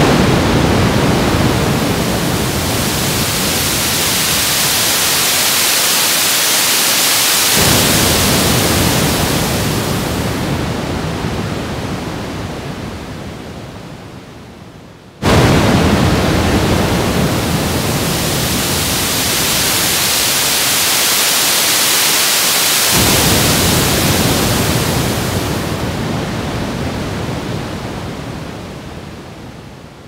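Synthesized ocean waves from a Eurorack modular synthesizer: noise from an Intellijel Noise Random Tools module shaped by envelopes into two slow waves. Each wave comes in suddenly with a low rumble and hiss, the rumble drops away about halfway, and the hiss swells and then slowly fades over about fifteen seconds.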